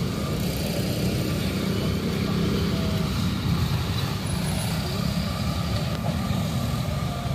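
Steady low rumble of road traffic with a wash of street noise.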